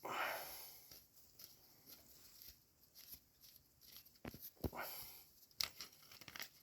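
Faint clicks, taps and scraping of hand tools and metal parts being handled while dismantling an electric-bike hub motor, with a short rustling swell at the start and a few sharper clicks near the end.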